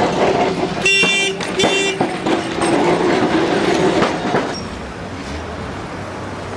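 A vehicle horn tooting twice in short blasts, about a second in and again just after, over the steady rumble of street traffic.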